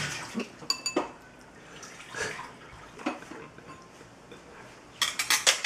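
Metal chopsticks stirring and dabbing in a ceramic bowl of liquid, with small splashes. A few sharp clinks on the bowl come about a second in, and a quick run of louder clinks comes near the end.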